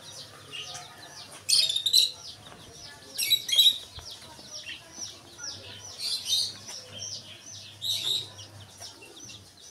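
Many chicken chicks peeping: a steady stream of short, falling peeps that swells into louder bursts of massed peeping four times.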